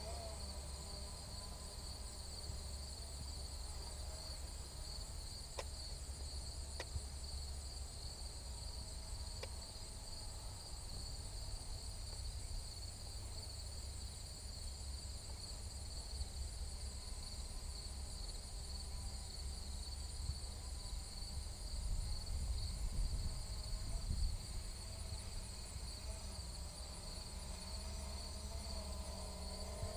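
Steady outdoor insect chorus, a continuous high-pitched buzzing, over a low wind rumble on the microphone that gusts briefly about three-quarters of the way through.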